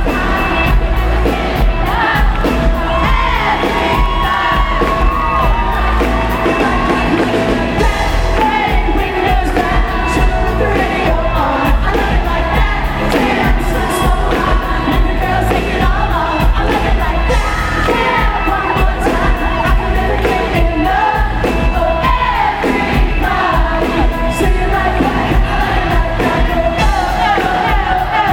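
A live pop band plays loud and without a break: a lead vocal sings over drums and heavy bass.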